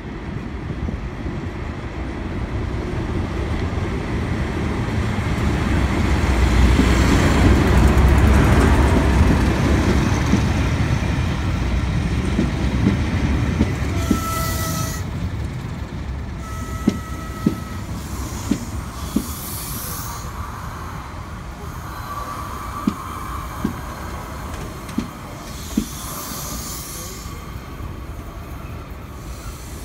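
Locomotive-hauled train passing close: a heavy low rumble swells to its loudest as the locomotive goes by. Then the coaches roll past slowly, the wheels giving irregular sharp clicks over the rail joints and brief high-pitched squeals.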